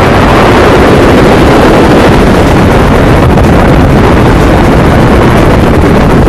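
Loud, steady rush of wind and engine noise from the open-cockpit aircraft carrying the camera, with the wind buffeting the microphone.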